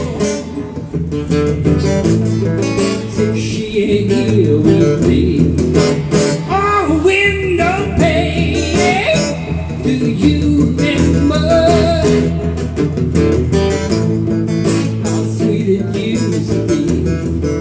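Acoustic guitar strummed, with a man singing in places over it: a live acoustic song.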